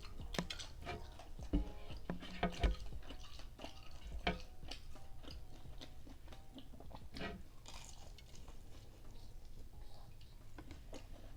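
Close-miked chewing of food, with scattered small crunches and mouth clicks, louder and more frequent in the first few seconds, then fainter.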